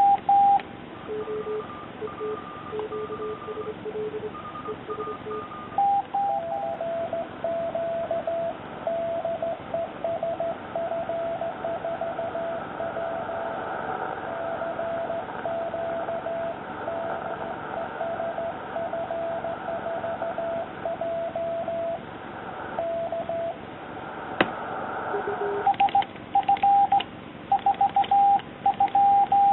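Morse code (CW) tones from an amateur radio station: a received station sending a CQ call as keyed beeps over receiver hiss. Near the end a higher-pitched sidetone, keyed by a homemade push-button Morse key, sends the reply, with small clicks as the button is pressed.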